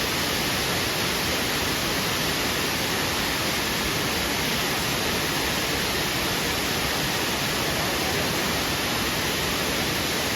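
Waterfall: a loud, steady rush of falling water, even and unbroken throughout.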